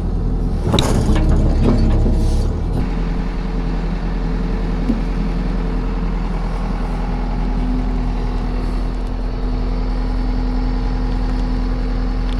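Engine of heavy fencing machinery, an excavator or tractor, running steadily. A louder rushing surge comes in the first couple of seconds.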